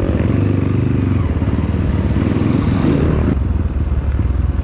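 Trail motorcycle engine running, revving up a little past two seconds in and dropping off sharply just after three seconds.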